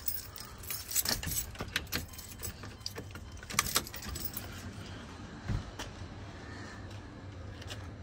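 Keys jingling with light scattered clicks and taps, most of them in the first half, then only faint handling noise.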